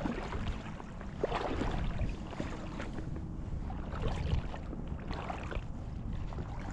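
Creek water sloshing and splashing, with wind rumbling on the microphone.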